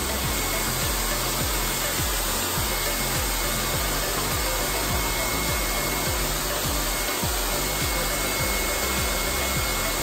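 Air blower running steadily with an even rushing hiss as it feeds low-pressure air through a hose to air casters under a refrigerator, floating it so it can be slid across the floor. Background music with a bass line plays underneath.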